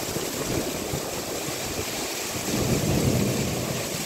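Heavy rain pouring down in a strong wind, with gusts buffeting the microphone; the wind rumble grows stronger about three seconds in.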